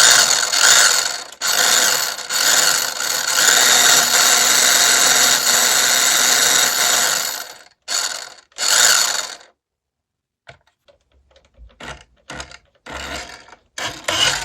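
Electric motor and gearbox of a vintage General Lee RC toy car whirring in one long run. Then come two short bursts about eight seconds in, followed by fainter scattered clicks and bumps. It is an old motor that sounds like it's had a long life but still drives the car.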